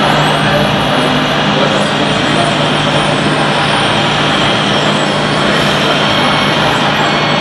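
Radio-controlled MAN 8x8 hook-lift truck reversing slowly, a steady truck-like drone with a constant low hum and no change in pace.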